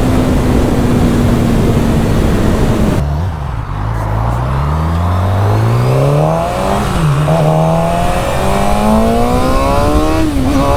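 Suzuki GSX-R600 inline-four sport-bike engine cruising steadily. About three seconds in the throttle is cut, then the engine note climbs as the bike accelerates, dipping briefly at shifts near seven and ten seconds before settling into a steady cruise. Wind rushes over the helmet-mounted microphone throughout.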